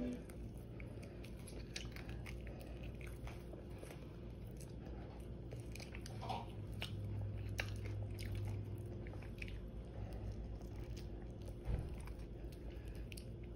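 A person chewing and crunching crispy air-fried chicken wings, with irregular sharp crunches over a faint low hum.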